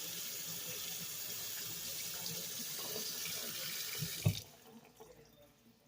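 Kitchen tap running, with water splashing into the sink as an apple is rinsed under it. The flow stops abruptly about four seconds in, just after a thump.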